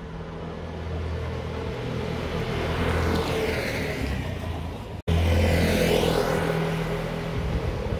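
Vespa Sprint scooter's single-cylinder engine approaching and passing close by, growing steadily louder and loudest about five to six seconds in. A split-second break in the sound comes just before the loudest point.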